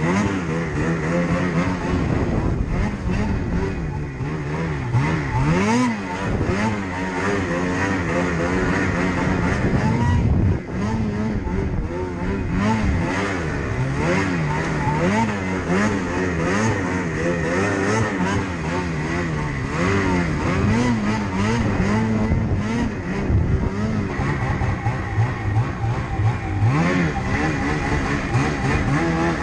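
Snowmobile engine running hard under constantly changing throttle while the sled is ridden through snow, its pitch rising and falling every second or two.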